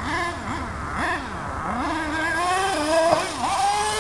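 HPI Savage 4.6 RC truck's small two-stroke nitro engine revving up and down as the truck is driven, its pitch rising and falling again and again.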